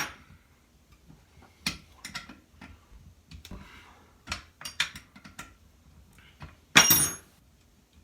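Hand tools and small metal parts clicking and knocking as a chainsaw is taken apart, with one loud metallic clatter that rings briefly about seven seconds in.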